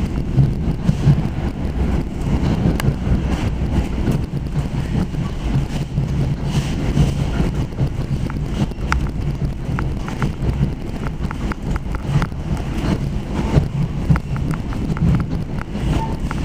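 Commuter train running, heard from on board: a steady low rumble with a haze of noise over it, and scattered sharp clicks and knocks from about halfway through.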